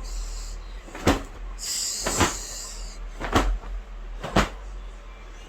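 Four sharp knocks or bumps about a second apart, with a brief rustling hiss between the first and second.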